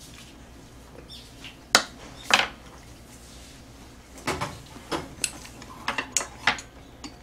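Chopsticks clinking and tapping against a metal tray of tteokbokki: two sharp clinks about two seconds in, then a quicker run of clinks between about four and six and a half seconds in.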